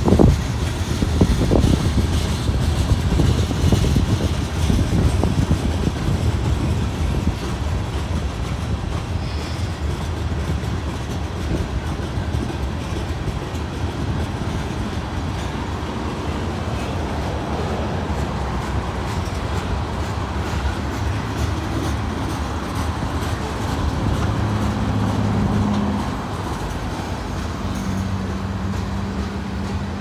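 Freight train of tank cars and covered hopper cars rolling past, a steady rumble and clatter of steel wheels on the rails. A low steady hum comes in about three-quarters of the way through.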